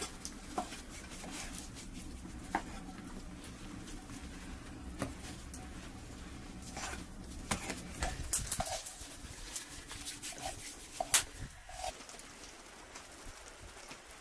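Hands tearing off and shaping lumps of lavash bread dough on a floured wooden board: soft handling sounds with scattered sharp clicks and knocks, busier in the second half, over a low steady hum that fades about eight seconds in. A few short animal calls sound in the background.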